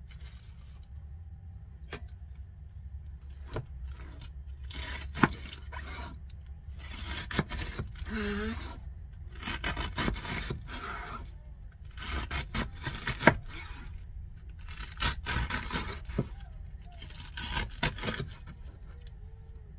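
Chef's knife cutting through a head of iceberg lettuce on a plastic cutting board: crisp crunching cuts in uneven groups, with the blade now and then knocking sharply on the board, over a steady low hum.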